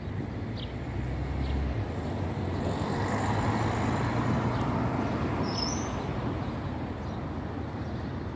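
Urban traffic noise, a steady hum of road vehicles that swells louder around the middle, with a low steady drone in the first couple of seconds and a few short high chirps.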